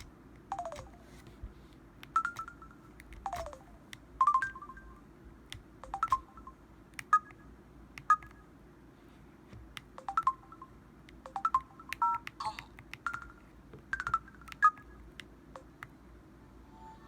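Samsung Anycall SPH-W5200 phone's key and menu effect sounds: a string of short, irregularly spaced electronic beeps and clicks, with two quick falling blips near the start.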